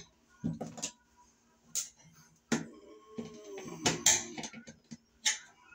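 A handful of separate sharp clicks and taps as a bare copper ground wire and hand tools are worked against a metal electrical box, with the wire being wrapped around the box's ground screw.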